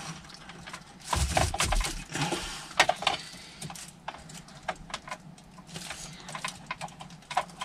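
Scattered plastic clicks and rustling as hands handle dashboard trim and wiring connectors in a car's centre console, with a denser rustle about a second in.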